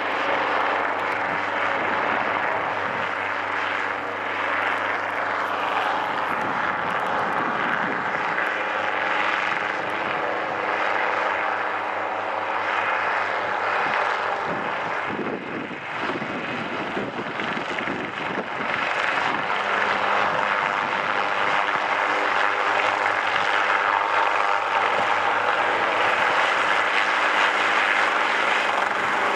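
Hughes 300 light helicopter flying low, its four-cylinder Lycoming piston engine and rotor making a steady drone. The sound dips briefly about halfway through and grows louder near the end as the helicopter comes closer.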